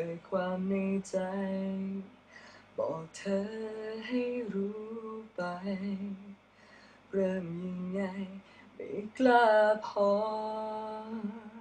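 A young man singing a slow Thai ballad softly and unaccompanied, in several short phrases with held notes and short pauses between them; the last phrase is drawn out near the end.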